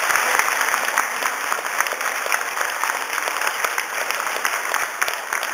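A roomful of seated dinner guests applauding, a dense, steady clatter of many hands clapping that eases off slightly near the end.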